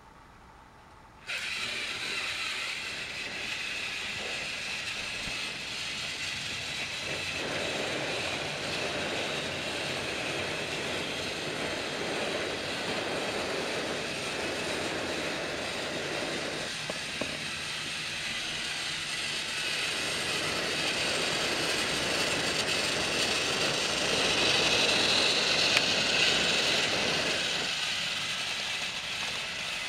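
Battery-powered Trackmaster toy Thomas engine starting up suddenly about a second in, then its small electric motor and gears whirring steadily as it runs on plastic track, getting louder near the end.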